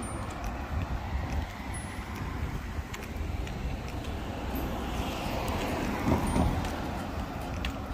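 Street traffic, with a car passing close by and swelling to its loudest about six seconds in.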